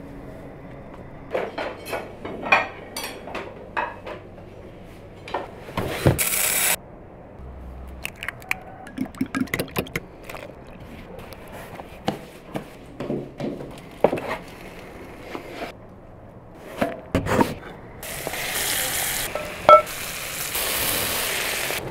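Cooking sounds in quick succession: short taps, clinks and knocks of food and utensils being handled, and a brief loud rush of noise about six seconds in. In the last few seconds, steady sizzling as chicken and potato slices fry on a hot iron plate, with one sharp click.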